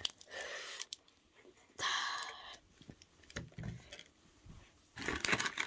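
A person drinking fizzy Lucozade from a plastic bottle, with a few short breathy, hissing sounds and bottle and handling noise.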